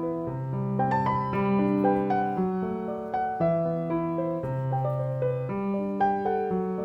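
Background piano music: gentle notes over a slow, steady bass line.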